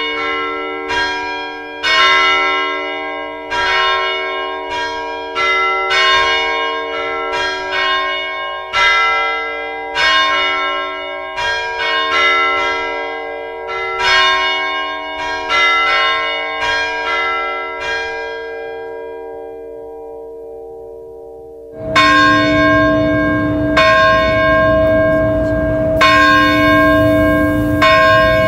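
Several bronze church bells ringing together in a quick, uneven peal, strokes of different pitches overlapping, then left to ring on and die away. Near the end a sudden change to a slower toll, about one stroke every two seconds, over steady background noise.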